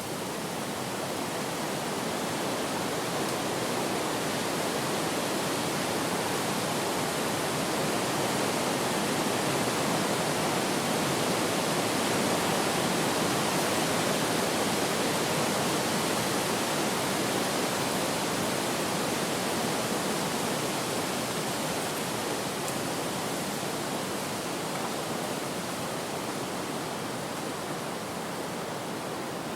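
Wind blowing in a steady rush, swelling gently through the middle and easing off again.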